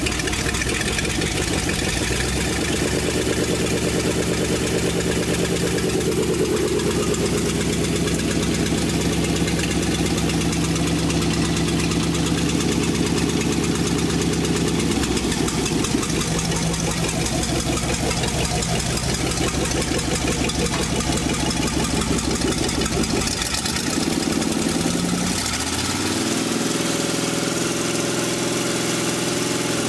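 DeSoto 330 Fire Flite Hemi V8 idling steadily, its note shifting briefly a couple of times. It runs without knock or tick, as the seller describes it.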